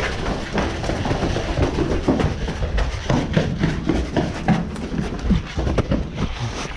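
Running footsteps, quick and uneven, on a concrete floor and then a dirt path, over a steady low rumble of gear and the camera jostling.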